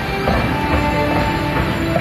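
A simple tune of held single notes playing over a steady low rumble.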